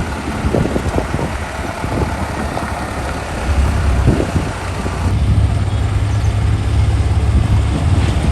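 Heavy diesel engine running steadily, with its low note growing stronger about five seconds in.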